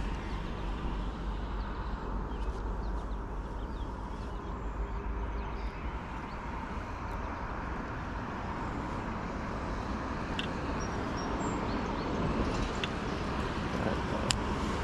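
Steady outdoor noise with a low rumble, like wind on the microphone, through the first half, and a few light clicks in the last few seconds.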